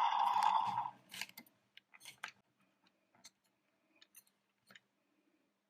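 A loud electronic sound cuts off about a second in. Then come scattered light clicks and taps of plastic toy vehicles being handled and set down.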